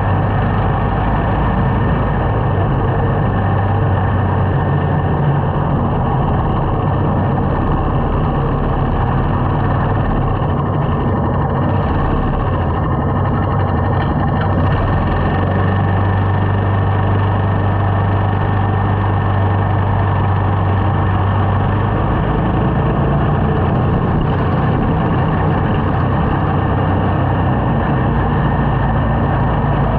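Small motorcycle's engine running steadily while riding, a constant low hum under a haze of road noise.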